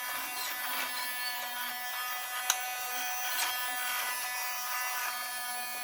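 Toy vacuum cleaner's small electric motor running with a steady whine, with a light click about two and a half seconds in.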